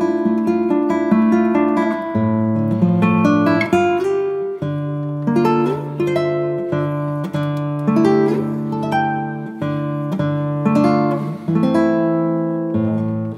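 Instrumental background music of plucked strings, a flowing run of picked notes over held low notes.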